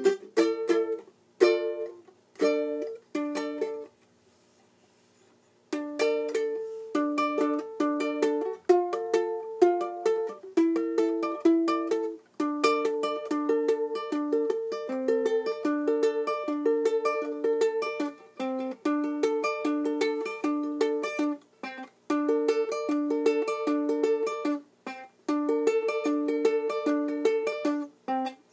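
Ukulele picked and strummed in a repeating melody and chord pattern, breaking off for about two seconds a few seconds in before playing on.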